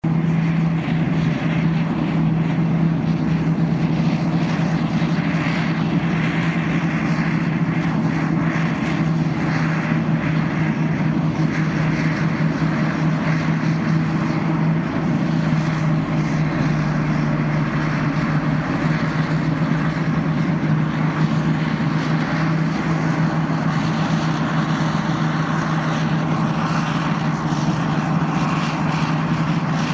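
Caterpillar D8K crawler tractors' diesel engines working under load while pulling and pushing towed hydraulic scrapers to strip topsoil: a loud, steady drone with a strong constant low hum.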